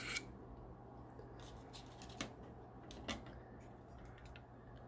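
A few faint, sharp clicks and light handling noise from 3D-printed plastic model building pieces being moved about, over a steady low hum.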